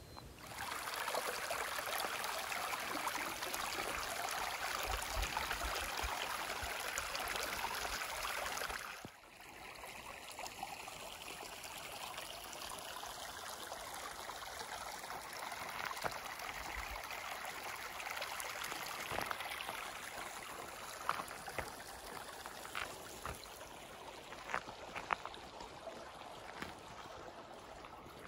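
Water running steadily in a small stream, an even rushing trickle. It breaks off about nine seconds in and comes back softer.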